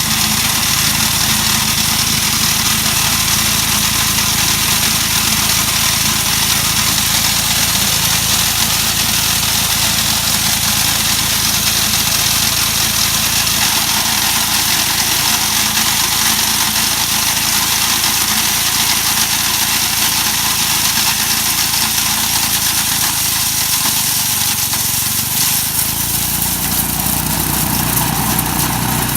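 Mighty Mac wood chipper running steadily at speed, its engine and chipper drum going together as one loud, even noise. The low part of the sound shifts slightly near the end.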